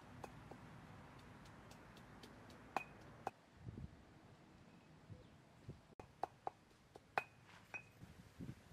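Faint, scattered light clinks and taps of cooking utensils (a stone mortar and pestle, then a metal pan and ladle), with a few soft thuds; the loudest clinks ring briefly, a little under three seconds in and a little after seven.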